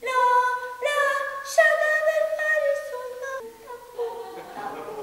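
A woman's voice singing unaccompanied: a slow tune of long held notes, each lasting about a second before stepping to the next pitch, growing softer near the end.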